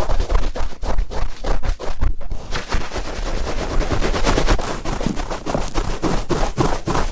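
Cotton swab rubbed firmly and twisted against an ear microphone, giving a loud, dense run of scratchy crackles and rubbing strokes.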